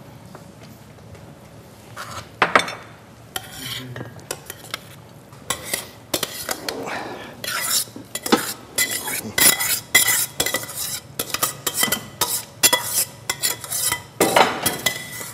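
A metal spoon scraping and clinking against the inside of a stainless steel pot as cooked rice is spooned out onto a plate. Only a few knocks at first, then rapid clinks and scrapes from about halfway through.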